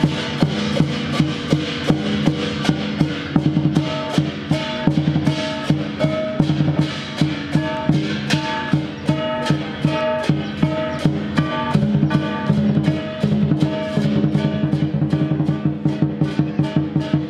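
Chinese lion dance percussion: a large drum beaten in a fast, driving rhythm, with cymbals and gongs clashing and ringing along with it.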